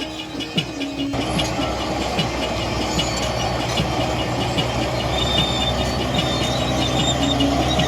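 Music cuts off about a second in. A heavy tracked earthmover's diesel engine then runs steadily under load, with high-pitched squeals over it.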